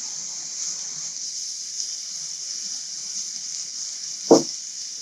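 Chicken and vegetables sizzling steadily in oil in a stainless skillet, a little fresh oil having just gone in. One brief thud about four seconds in.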